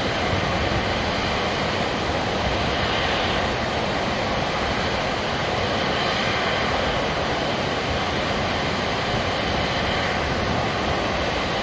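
Curtain-style (sudare) water release over the crest of Naruko Dam, the water falling down the dam face and splashing into the basin below: a steady, even rushing of heavy falling water.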